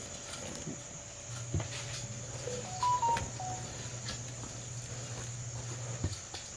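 Crickets chirring steadily in one high, unbroken note, under a low hum and a few soft knocks. About three seconds in, a short run of stepped beeping notes rises and falls.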